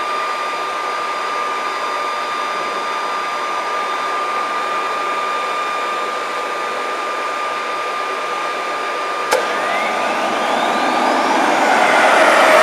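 Backpack leaf blower blowing air into a homemade turbojet's intake to spin it for starting: a steady rush of air with a thin steady whine. About nine seconds in there is a sharp click, then a whine rises steadily in pitch and the rush grows louder as the engine spools up in a start attempt.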